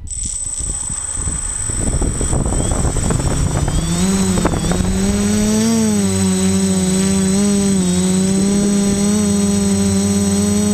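Quadcopter's electric motors and propellers spinning up. A buzz rises in pitch over the first few seconds, then holds a steady hum, with a thin high whine above it throughout.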